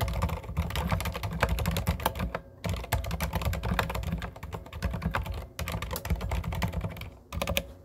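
Continuous typing on a Deck Francium Turtleship mechanical keyboard fitted with low-noise silent red switches and PBT keycaps: a dense run of muted keystrokes with a few brief pauses.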